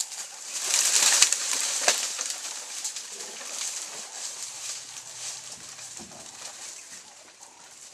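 Dry leaf litter and brush rustling and crackling loudly as an animal rushes through the undergrowth, with a couple of sharp twig snaps about a second in and again near two seconds, then fading to a softer rustle.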